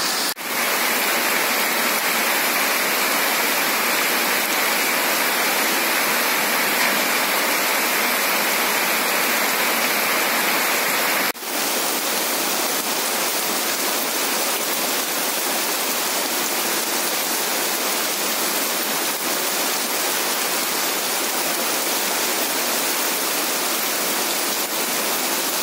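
Heavy rain pouring down, a dense, steady hiss. It drops out for a moment twice, just after the start and near the middle.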